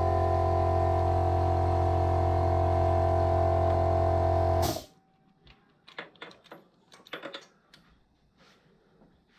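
A loud, steady drone of several held tones that cuts off suddenly a little under five seconds in, followed by faint scattered clicks and knocks.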